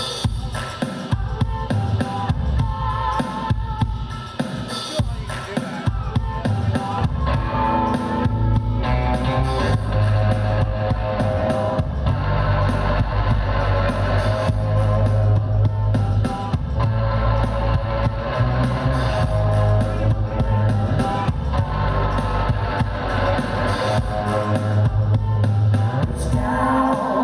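Live band playing an instrumental passage: guitar over a drum kit, with a loud held low bass note coming in about eight seconds in.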